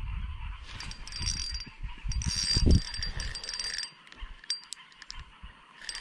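Fishing reel being cranked in short bursts of high whirring while a fish is played on the line, over a low rumble that fades about four seconds in.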